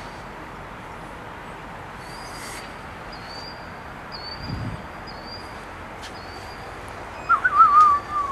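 Birds calling over steady outdoor background noise: a short, high chirp repeated about every half second, then a louder wavering call near the end. A brief low thump comes about halfway through.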